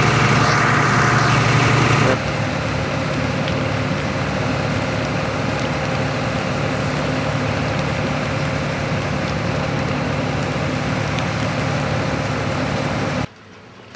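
An engine running steadily, louder for the first two seconds, then cutting off abruptly near the end.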